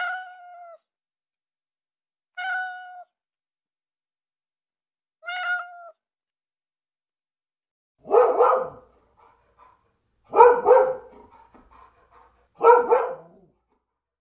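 A cat meowing three times, short clear calls a couple of seconds apart. A dog then barks three times, louder and rougher.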